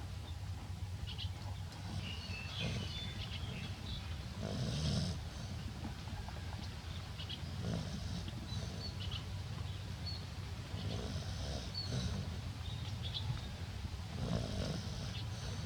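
An elderly woman snoring, slow deep breaths swelling every two to three seconds.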